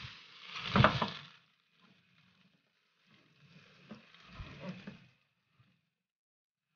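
A frying pan turned upside down on a steel plate, knocked and shifted about on a gas stove: a loud metallic knock about a second in, then softer scraping and handling noises with a small click.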